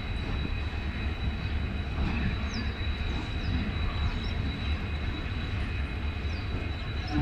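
Passenger train coaches rolling slowly past at low speed, a steady low rumble of steel wheels on the rails.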